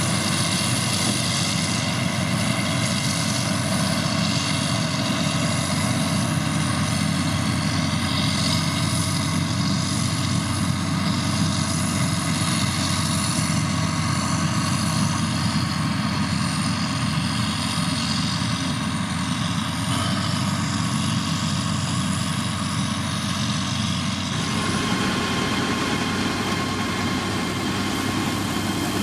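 Diesel engine of heavy road-construction machinery running steadily, with an abrupt change in its sound about 24 seconds in.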